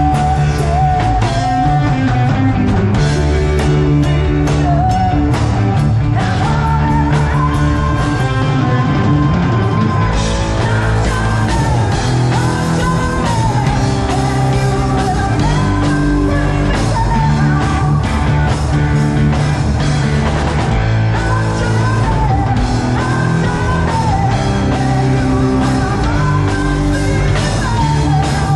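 Rock band playing live through a PA: electric guitars, bass and drums, with a singer's voice over them.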